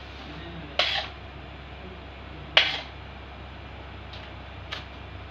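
Spatula tapping against the rim of a mixing bowl while icing is loaded into a piping bag: two sharp clicks about two seconds apart, then two fainter ticks near the end.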